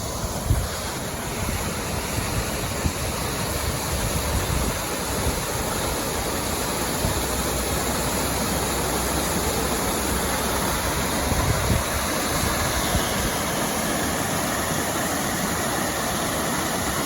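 Waterfall's steady rush of falling water, with a few brief low thuds, the strongest about half a second in and again near twelve seconds.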